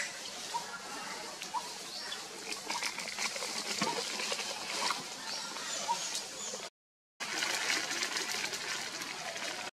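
Outdoor forest ambience: a steady hiss with faint short chirps about once a second and light ticks of rustling. The sound cuts out completely for about half a second around seven seconds in.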